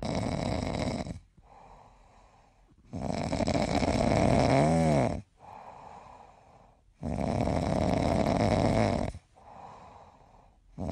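A sleeping puppy snoring: three long, rasping snores about four seconds apart, each followed by a softer breath.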